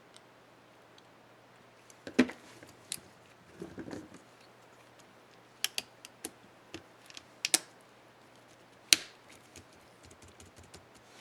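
Sharp plastic clicks and snaps of a laptop keycap being fitted and pressed on an Acer Aspire One 725 keyboard's Enter key. The clicks come irregularly, the loudest about nine seconds in, with a quick run of light taps near the end.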